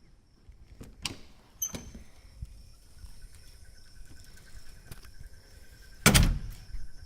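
A door being worked: a latch clicks about a second in and again shortly after, a faint steady high tone hangs in the background, then the door shuts with a loud thud about six seconds in, followed by a few small clicks.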